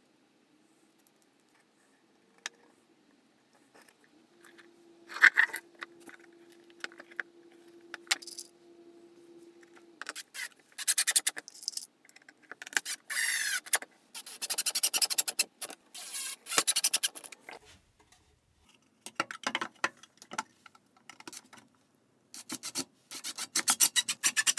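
DeWalt cordless impact driver driving screws into a plywood box in several short bursts in the second half, with handling clicks and clatter before them.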